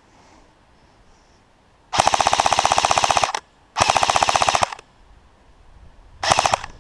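Airsoft rifle firing on full auto in three bursts: a long one about two seconds in, a second of about a second, then a short one near the end, each a rapid even rattle of shots.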